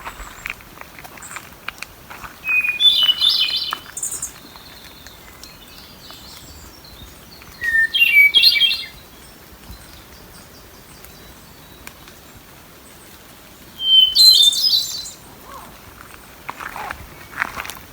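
Wood thrush singing: three separate flute-like song phrases, each about a second long and ending in a high trill, spaced about five to six seconds apart.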